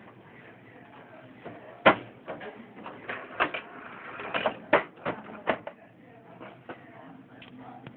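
Irregular plastic clicks and knocks from an HP Photosmart 8750 printer's paper trays being handled, the sharpest about two seconds in and a quicker cluster a couple of seconds later, over a faint low hum.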